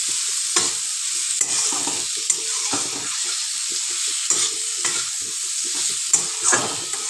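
Vegetables sizzling in oil in a steel kadai while a metal spatula stirs and scrapes them in quick repeated strokes.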